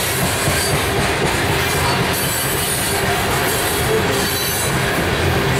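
Coal train's gondola cars rolling past close by: a steady rumble of steel wheels on rail, with brief squealing tones coming and going.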